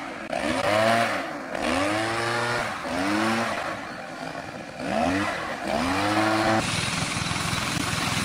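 Backpack leaf blower's small two-stroke engine revved up and down over and over, its pitch swinging as the throttle is worked. Near the end a steadier engine drone takes over, from the pressure washer.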